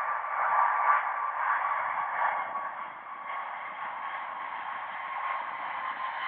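Pratt & Whitney F135 turbofan of an F-35A on landing approach: a steady jet rush with a high whine running through it that falls slightly in pitch. The rush is loudest about a second in.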